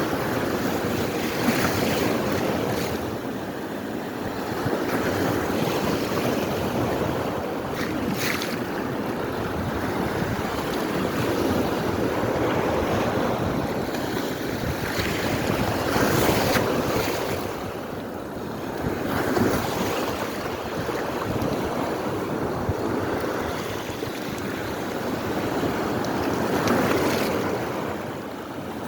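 Small sea waves breaking on the shore: a steady wash of surf that swells and eases every few seconds, with a brief hiss now and then as a wave breaks.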